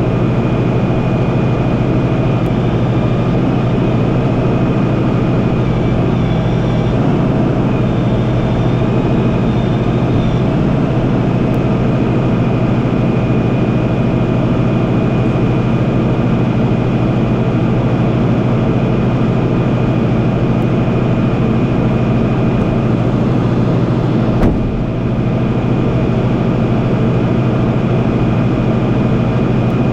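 Freightliner rollback tow truck's diesel engine running steadily, with a faint steady high whine over it and one brief knock near the end.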